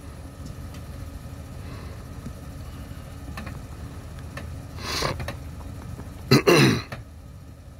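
Steady low hum of the 2010 Porsche Cayenne GTS's V8 idling while its air suspension raises the body. About five seconds in comes a short breathy hiss, and about a second later a loud throat clearing, the loudest sound.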